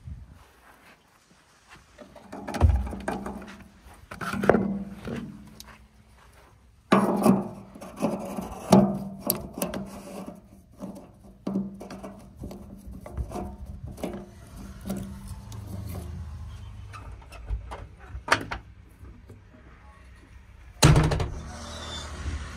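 JCB 3DX backhoe loader working, with a string of irregular knocks, clunks and thuds as the bucket digs and dumps mud. A steady engine note runs under part of it, and one heavy thud lands near the end.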